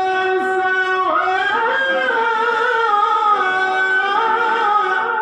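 A qari reciting the Quran in the melodic tilawah style: one long unbroken phrase of high held notes, sung with wavering, gliding ornaments.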